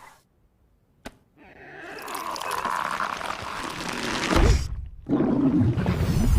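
Sound effects: a brief quiet with a single click, then a rushing noise that swells for a few seconds, a thump, and from about five seconds in a loud, deep rumble.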